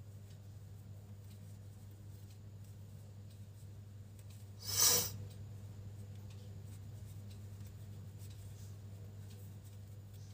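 Faint ticking and scraping of a crochet hook and yarn over a steady low hum, with one short, loud rush of noise about five seconds in.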